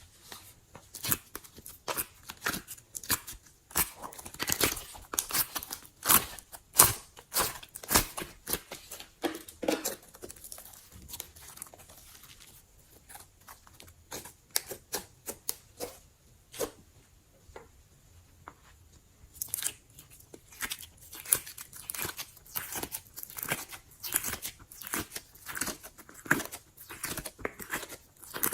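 Slime being squished and pressed by hand, giving a rapid, irregular run of clicks and pops that thins out for several seconds in the middle, then picks up again.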